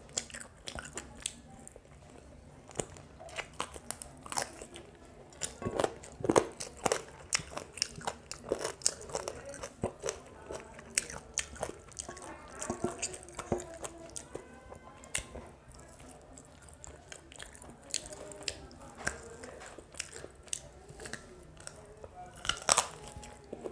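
Close-miked eating sounds of chicken biryani eaten by hand: chewing with many short, sharp smacks and clicks, and a louder bite into a piece of chicken near the end.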